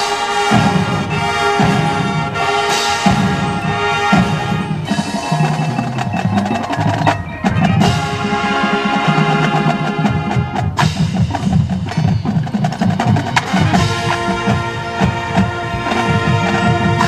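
High school marching band playing live: sustained wind chords over drums and the front ensemble's mallet percussion, with frequent sharp percussion strikes.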